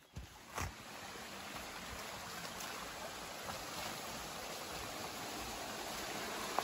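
Water of a stream rushing steadily, growing gradually louder. Two footsteps on the dirt trail come just before it near the start.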